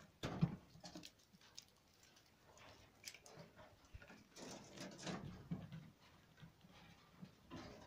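Faint rustling and scratching with a few sharp clicks as a dark squirrel shuffles over scattered seeds, corn, nutshells and gravel while a hand strokes it. The sound comes in short bursts: about half a second in, again around four to five seconds, and near the end.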